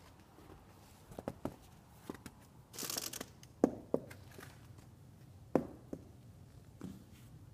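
Footsteps on a hard tile floor: a handful of separate sharp steps, the loudest about two seconds apart, with a short scraping hiss of shoes just before the middle.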